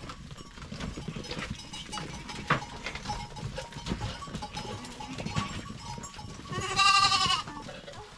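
Goats moving about their pen, with scattered knocks and rustles, then one loud bleat lasting just under a second near the end.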